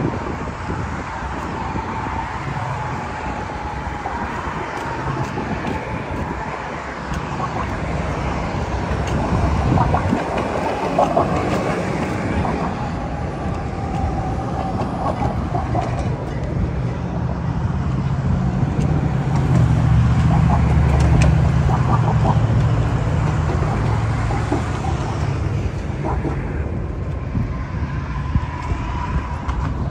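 Road traffic on a city bridge: cars driving past in a continuous rush of tyre and engine noise. A heavier low rumble builds a little past halfway as a vehicle passes close, then eases off.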